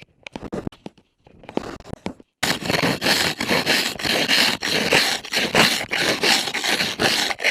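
Repeated scraping strokes, sparse at first, then dense and loud from about two and a half seconds in.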